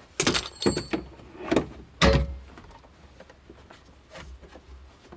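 A series of sharp clicks and knocks from hands working plastic and metal steering-column parts while a clockspring is being removed and fitted. There is a quick cluster in the first second, the loudest knock comes about two seconds in, and a faint one follows near the four-second mark.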